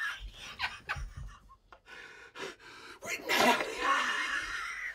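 A man's excited, breathy gasps and half-voiced exclamations with no clear words, the loudest an open-mouthed gasping cry about three seconds in.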